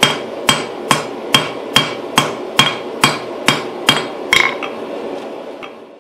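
Blacksmith's hand hammer striking steel on an anvil in a steady rhythm of about two blows a second, each with a short metallic ring. The blows stop about four and a half seconds in, leaving a steady rushing background that fades out.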